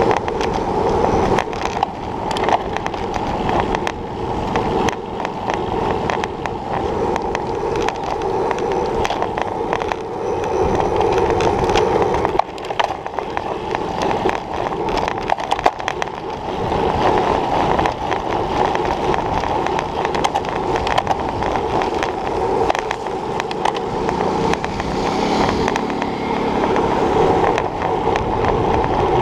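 Road bike rolling fast on rough, cracked asphalt, heard from a handlebar-mounted camera: a steady tyre and road rumble with wind, shot through with frequent rattles and clicks from bumps in the surface.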